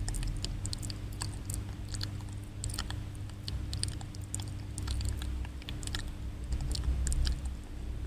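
ASMR mouth sounds close to the microphone: quick, irregular wet clicks and smacks of tongue and lips, over a steady low hum.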